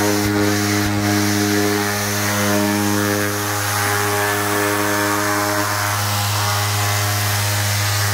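Mirka DEROS 5mm random orbital sander running steadily, with a 120-grit profile pad on a 10mm interface pad rubbing back a corroded painted gutter. There is an even motor hum over the hiss of the abrasive.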